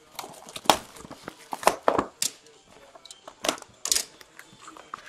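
Plastic shrink wrap crinkling and tearing as it is stripped from a sealed box of hockey cards, in a string of irregular rustling rips.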